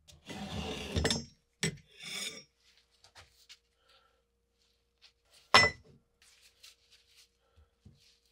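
Hands handling metal parts on a wooden workbench. A rubbing scrape runs through the first second, followed by two shorter scrapes. About five and a half seconds in comes one sharp clank, the loudest sound, and then light taps and rustles.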